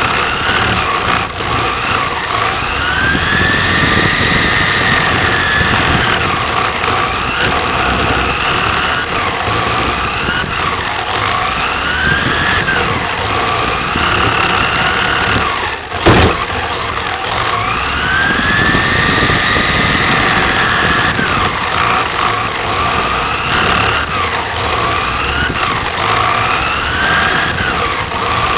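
Onboard sound of a 1/10-scale electric RC touring car (Team Associated TC4, VTA class) racing on carpet. The motor and drivetrain whine rises in pitch on the straights and falls into the corners, in a pattern that repeats each lap, over a rumble of tyres on the track. A single sharp knock a little past halfway is the loudest sound.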